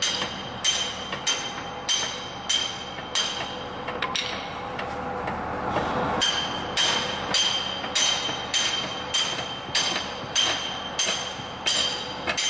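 Hammer blows on metal at a steady pace, about three blows every two seconds, each blow ringing. There is a break of about three seconds partway through, then the blows resume at the same pace.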